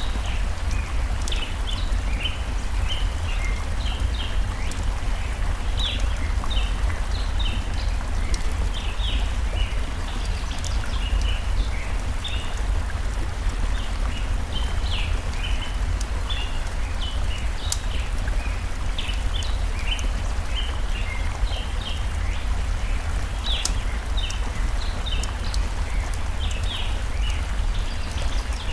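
Steady rush of a stream, with many short bird chirps throughout and a few sharp crackles from a wood fire.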